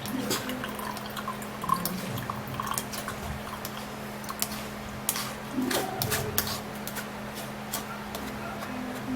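A liquid mixture dripping and trickling through a sieve, with frequent light clicks and taps of utensils against the container, over a steady low hum.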